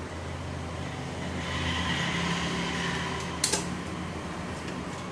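Steady hum of an electric fan, with one sharp click about three and a half seconds in as lantern parts are handled.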